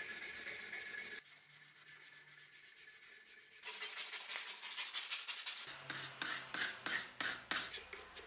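Hand rasp scraping a birch axe handle for about a second. Then, after a quieter stretch, sandpaper rubs the wood in quick back-and-forth strokes that grow stronger toward the end.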